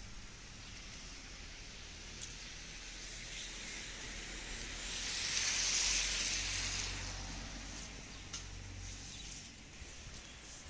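Heavy rain falling steadily with a constant hiss and scattered drip ticks. About five seconds in, a louder rush of spray hiss swells and fades over two to three seconds.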